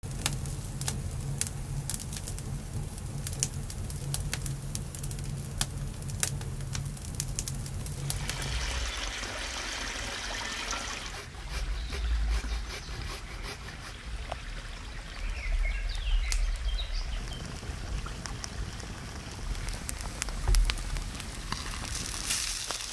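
A run of outdoor cooking sounds. For the first eight seconds there are sharp crackles and clicks over a low steady hum, then a hiss for a few seconds. After that comes food being scraped across a metal box grater, with a few bird chirps and a single loud knock near the end.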